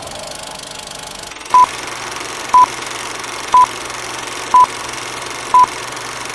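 Old-film countdown leader sound effect: five short beeps of one pitch, one each second, over a steady film-projector hiss and low hum.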